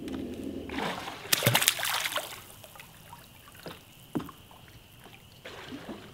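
A small fish thrown back into the river hits the water, a splash and sloshing peaking about a second and a half in. Two sharp clicks follow about a second later.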